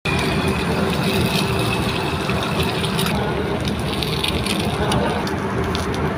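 Egg frying in hot oil in a nonstick pan, a steady sizzle with fine crackling and spattering, over a constant kitchen rumble.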